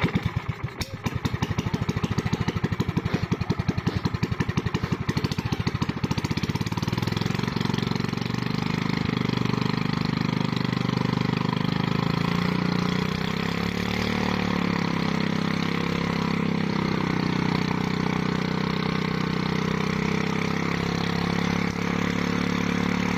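Small air-cooled Sumo gasoline engine running, at first slowly with each firing beat heard separately, then speeding up after about seven seconds into a faster, smoother run, with a brief rise in revs about halfway through.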